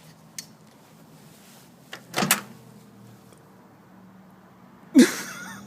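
Microwave oven door being opened: a small click, then a sharper clunk of the latch about two seconds in, over a faint steady hum. A louder sudden bang comes near the end.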